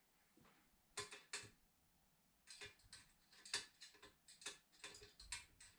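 Faint, quick clicking from a small hand tool at the headlight adjusting screw: two clicks about a second in, then a steady run of about five clicks a second from halfway through.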